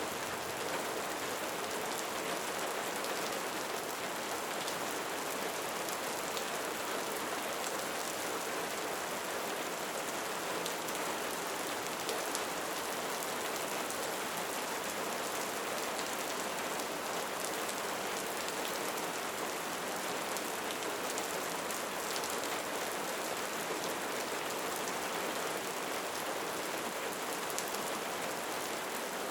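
Steady rain falling, an even hiss with faint scattered drop ticks, unchanging throughout.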